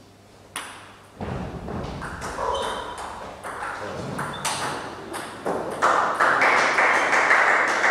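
Table tennis ball clicking in a rally, struck by the bats and bouncing on the table in a quick, even run of sharp ticks. A louder wash of noise rises under the hits over the last two seconds.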